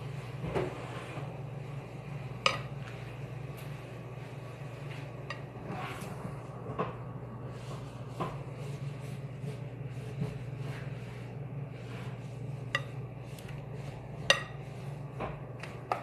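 Metal spoon clinking now and then against a glass bowl while stirring thick chocolate sauce, irregular light knocks over a steady low hum.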